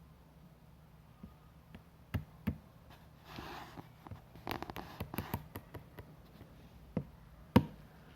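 Hands handling the packaging while unboxing a keyboard: a brief rustle, which fits the plastic film, scattered taps and clicks, and two sharper knocks near the end, the second the loudest.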